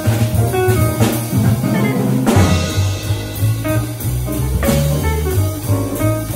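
Small jazz group playing at a medium tempo: electric guitar picking a single-note line over double bass and drum kit, with cymbal crashes about a second in, a little past two seconds and near the end.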